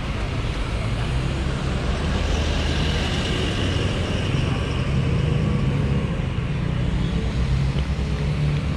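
Road traffic: cars and a pickup truck driving past close by, engines running and tyres hissing on the road, one vehicle passing loudest about three seconds in.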